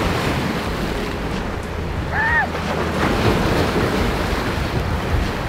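Wind buffeting the microphone over waves breaking on the shore, a steady rushing noise with low rumble.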